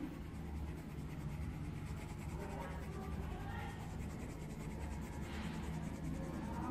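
Colouring strokes scratching on paper, with two stronger strokes, one about halfway through and one near the end, over a steady low hum.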